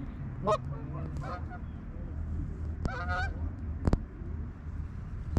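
Geese honking as a flock comes in: three short bouts of honks a second or two apart, with a single sharp click about four seconds in.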